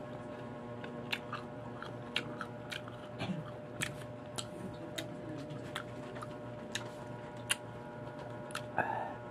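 Close-up chewing of crunchy unripe green mango: irregular crunches and wet clicks, about one or two a second, over a faint steady hum. A short, louder mouth sound comes near the end.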